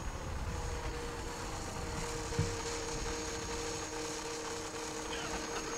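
Small motor and propeller of a scratch-built RC Magnus-effect aeroplane running steadily in flight: a steady hum with a faint high whine over a low rumble. A soft thump about two and a half seconds in.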